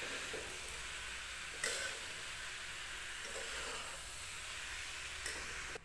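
Potato and chickpea filling sizzling softly in a kadhai as a steel spoon stirs it, with a light knock of the spoon about two seconds in and again near the end.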